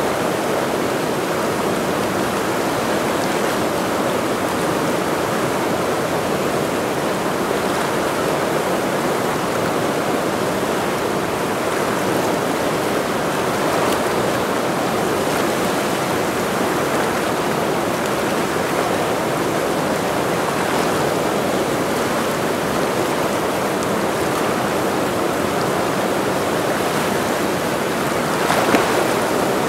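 Fast mountain river, the Ursul, rushing over rocks in a steady, loud roar of water, with a brief louder surge near the end.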